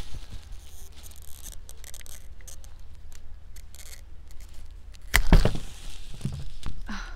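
Pruning shears snipping and crunching through the fleshy stem of an Echeveria pallida succulent: a run of small crisp clicks. A single loud thump comes about five seconds in, with a couple of softer knocks after it.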